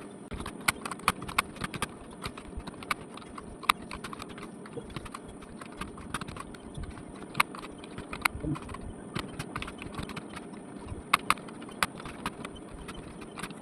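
Computer keyboard being typed on steadily during a timed typing test: a fast, irregular run of key clicks, with a few louder keystrokes standing out.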